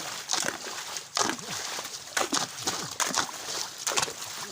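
Wet, squelching strikes of soil being dug up and turned over in a waterlogged field, several in quick irregular succession.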